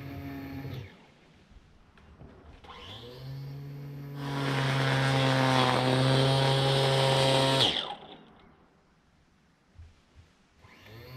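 Cordless Flymo Contour 20V Li grass trimmer/edger's electric motor running in short bursts: it cuts off under a second in, spins back up about three seconds in, runs steadily and loud for about four seconds, stops, and starts again near the end.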